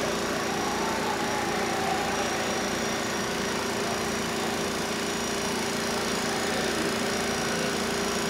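Steady background din of a large exhibition hall: an even, unbroken hum with no distinct events.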